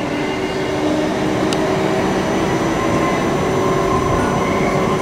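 Electric multiple-unit trains, a Class 450 and a Class 444, running near the platform: a steady rumble with several held electric whining tones.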